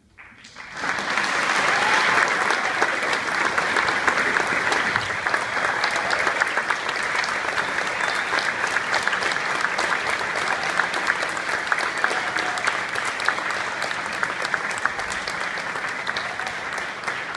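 Audience applauding: clapping breaks out out of near silence about half a second in, swells within a second and then holds steady.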